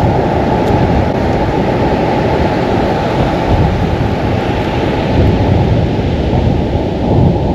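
Loud, steady rumble of wind on the microphone mixed with breaking surf, with no clear distinct events.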